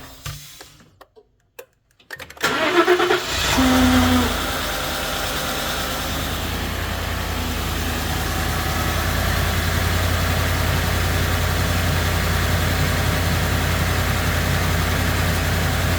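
Ford F-150's 5.0 V8 engine shutting off, falling quiet for a second or two, then cranking and firing about two seconds in. It flares up briefly with a rising whine, the start-up whine the owner is showing, then settles into a steady idle.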